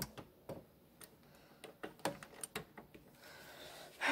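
A doorknob turned and a door pushed open: a string of small clicks and knocks, a brief soft hiss, then a louder knock at the end.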